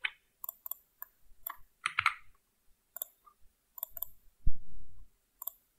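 Computer mouse clicks, single and spaced irregularly, about nine in all, with one louder low thump about four and a half seconds in.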